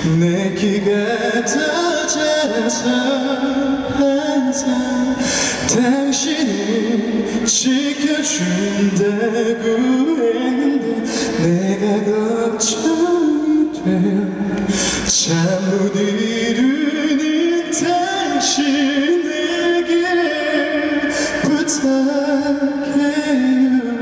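A man singing a cappella into a handheld microphone, unaccompanied, with long held notes and slides in pitch between them.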